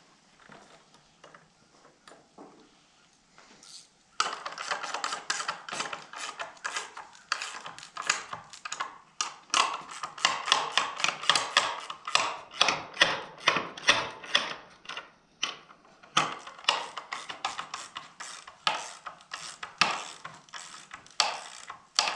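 Rapid metallic clicking of a hand ratchet wrench tightening the bolt on a steel sliding barn-door roller bracket, starting about four seconds in after a few faint clinks and going on in quick runs of about four clicks a second.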